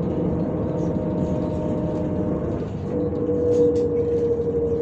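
Inside a MAZ-105 articulated city bus on the move: steady engine and road hum with a held whine that shifts about three seconds in, then slowly falls in pitch.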